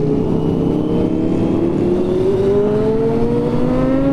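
Motorcycle engine accelerating, its pitch climbing steadily, over steady road and wind noise.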